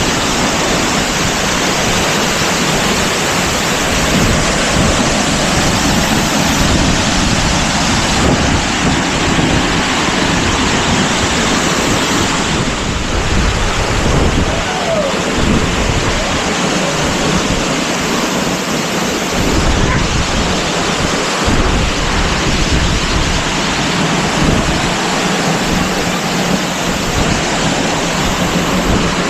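Waterfall pouring water, a loud steady rushing hiss, with wind gusting on the microphone as uneven low rumbles.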